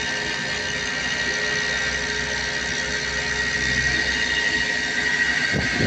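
Steady running machinery: a low rumble with a high, steady whine over it.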